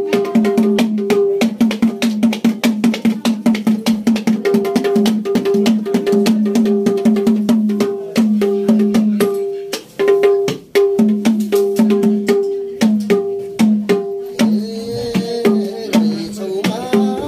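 Madal, the Nepali two-headed barrel hand drum, played in a fast, steady rhythm that alternates deep bass-head strokes with higher, ringing treble-head strokes, with a short break about ten seconds in. Near the end a man's voice comes in, singing over the drum.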